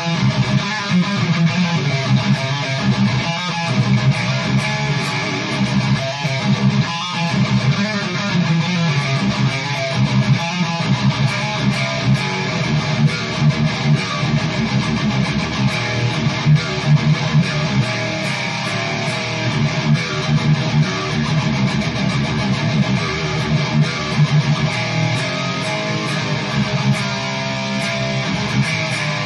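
Distorted electric guitar riffing with chugging, picked rhythm through a modified Amazon Basics overdrive pedal of the Tube Screamer type.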